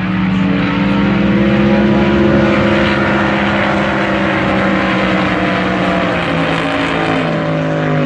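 Race boat engine running loud and steady at high revs, its pitch sliding down near the end.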